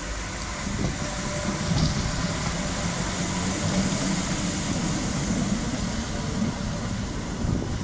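Class 86 electric locomotive 86259 running light past at low speed: a steady electric hum and rumble of its motors with the wheels rolling on the rails.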